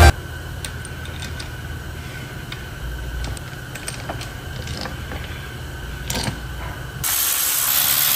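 Faint clicks and taps of metal parts being handled and seated on a Mini N12 cylinder head, over a steady low hum and a faint steady whine. About seven seconds in, a louder hiss comes in and cuts off abruptly a second later.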